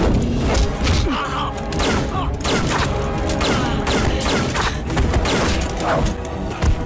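Film fight-scene sound effects: a rapid string of punch and body-impact hits over loud action music.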